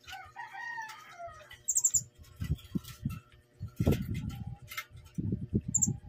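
Philippine hanging parrots give short, very high-pitched squeaky calls, once about two seconds in and again near the end, amid low fluttering and bumping as they move about the cage.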